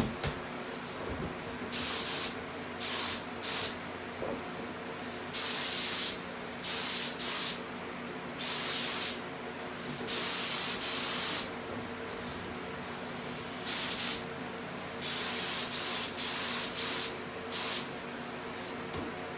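Paint being sprayed onto a go-kart frame in about a dozen short hissing bursts, each under a second to about a second and a half long, with a steady low hum underneath.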